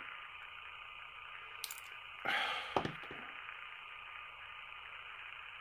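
Small plastic clicks and rubbing as a model locomotive's body is worked off its chassis by hand, with a short breath out a little over two seconds in.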